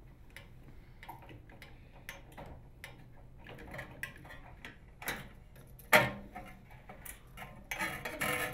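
Phillips screwdriver unthreading a screw from a microwave's sheet-metal capacitor retaining bracket: a run of small, irregular ticks and clicks, with a sharper click about six seconds in and a short clatter of metal near the end as the screw comes out.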